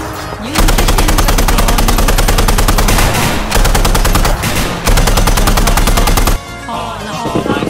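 Rapid machine-gun fire in long, fast bursts, broken by two short pauses, cutting off about six seconds in. Music takes over near the end.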